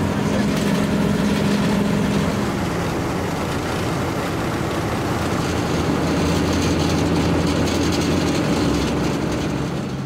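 Diesel engines of asphalt-paving machines running steadily: a continuous low drone with a wide mechanical rumble, a little louder in the first and last thirds.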